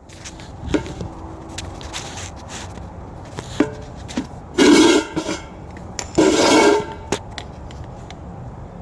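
Metal-on-metal shop work on a car's rear brake drum assembly: scattered light clicks and knocks, with two louder metallic grinding, ringing bursts of about half a second each, about halfway through.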